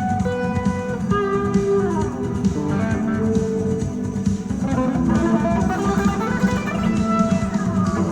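Lead guitar playing a melody of held notes over a backing track with drums and bass. A couple of times the notes slide down or up in pitch.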